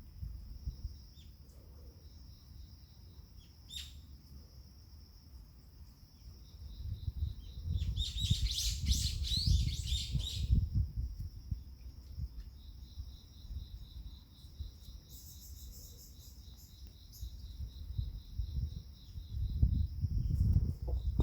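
Birds chirping: a steady high, pulsing chirp throughout, with a dense burst of chirping about eight seconds in lasting a couple of seconds, over a low rumble.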